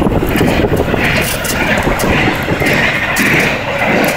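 Loud, steady rush of wind and road noise from a vehicle moving at speed, with wind buffeting the microphone; a hissing component grows stronger about a second in.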